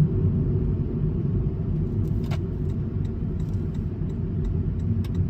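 Steady low rumble of a car being driven, with a few faint light ticks in the middle and again near the end.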